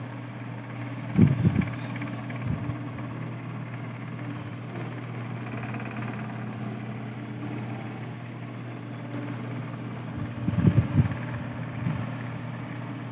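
A steady low mechanical hum, with two brief clusters of low thumps, one about a second in and one near the end.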